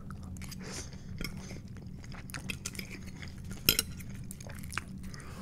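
Close-miked chewing and wet mouth sounds of eating loaded tater tots, with a metal fork clinking and scraping on a plate; the sharpest clink comes a little before four seconds in. A steady low hum runs underneath.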